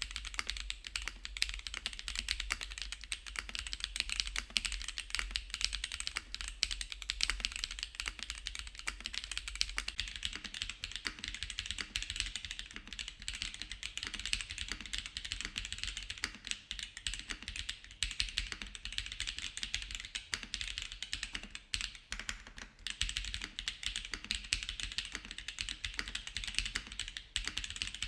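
Continuous fast typing on a Veil 65 gasket-mounted mechanical keyboard with a full aluminium plate, no dampening foam, WINGBlack switches and DCS-profile keycaps: a dense, unbroken stream of key clacks.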